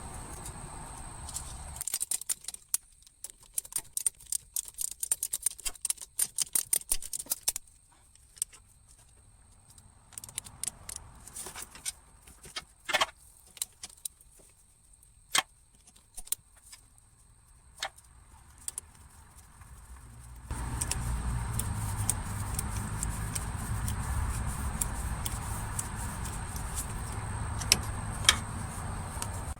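Ratchet clicking in quick runs, with sharp metal clinks of wrench and bolts, as the 1/2-inch bolts holding the A/C lines to the compressor are undone. A steady low rumbling noise comes in about two-thirds of the way through.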